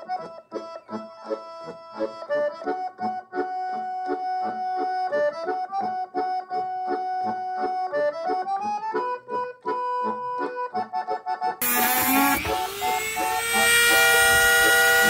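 Accordion music with a steady rhythm. About eleven and a half seconds in, a small power tool's motor starts loud over it, its pitch rising as it spins up and then holding steady.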